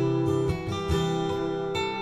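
Background music led by a plucked acoustic guitar, its chords changing every fraction of a second.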